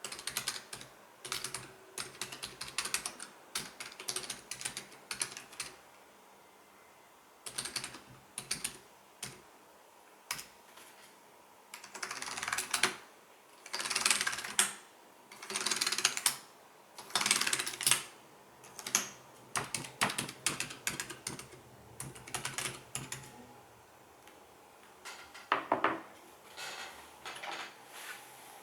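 Mechanical keyboard being typed on in bursts of rapid keystrokes with short pauses between them. The runs are loudest in the middle, and there is one deeper, heavier key clack near the end. The microphone gain is raised, so the keystrokes sound louder than they are.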